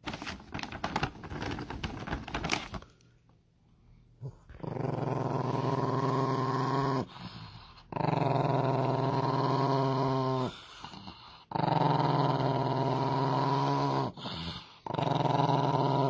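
A plastic treat bag crinkles and rustles as a hand digs into it. Then a small Chihuahua-type dog begging for the treats gives four long, steady growls of about two and a half seconds each, the second trailing off with a falling pitch.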